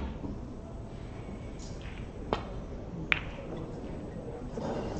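Snooker break-off: the cue ball hits the triangle of reds with a sharp click a little over two seconds in, then a sharper, brighter ball click about a second later as the scattered balls collide.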